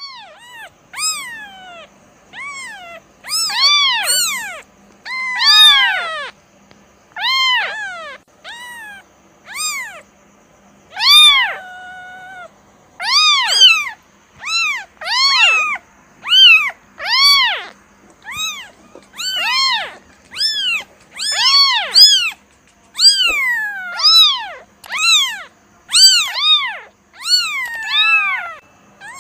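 Kitten meowing over and over, about one high-pitched call a second, each call rising then falling in pitch.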